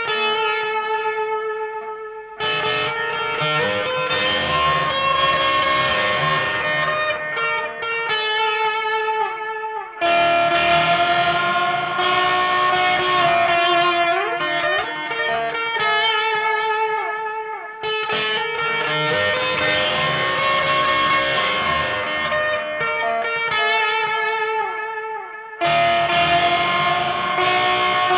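High-gain distorted electric guitar, an Ibanez RGA42FM through a cranked Randall Diavlo RD20 tube amp, playing a metal riff of held chords and melodic lead lines. The phrase repeats about every eight seconds.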